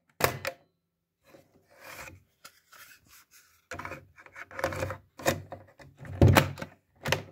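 Mechanical clicks, thunks and rubbing from handling a Unitra MK 433 Automatic cassette recorder: a string of separate sharp knocks, the loudest about six seconds in.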